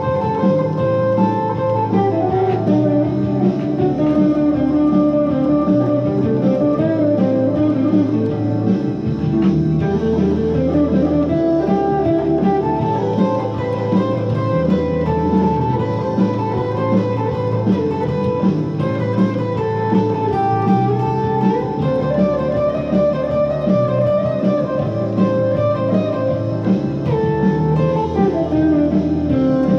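Les Paul–style electric guitar playing an uptempo blues solo: continuous single-note lead lines that climb and fall through the phrases.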